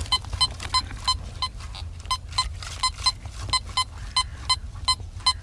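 Teknetics Omega 8500 metal detector beeping as its search coil is swept back and forth over a buried metal target: a quick, even run of short, identical high beeps, several a second.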